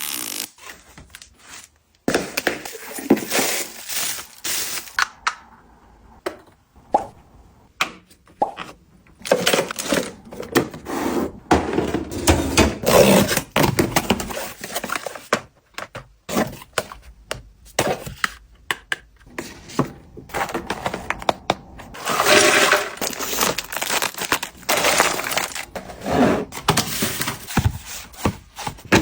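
Packaging being handled and opened: rustling and crinkling with many irregular sharp clicks, taps and knocks.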